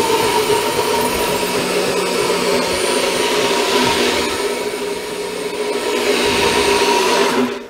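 NutriBullet-style personal blender running at full speed, blending soft steamed sweet potato with milk solids to whip air into it: a loud, steady motor whine that eases slightly partway through and cuts off sharply near the end.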